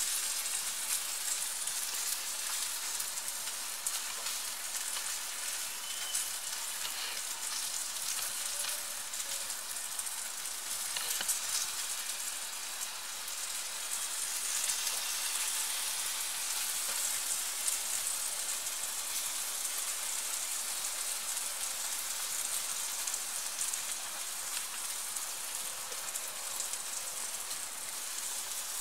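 Bacon-wrapped meatballs sizzling on a gas grill's grate as barbecue sauce is brushed on: a steady high hiss with a few faint ticks.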